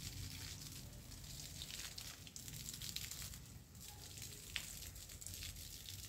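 Water spraying from a garden hose onto vegetable plants: a faint steady hiss with light crackling, and one sharp click about four and a half seconds in.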